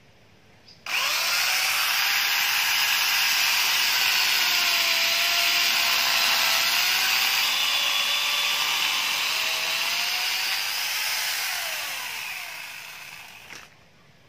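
Corded electric angle grinder fitted with a chainsaw bar and chain, switched on about a second in and cutting into a mango trunk, its whine wavering in pitch as the chain bites. Near the end it is switched off and winds down.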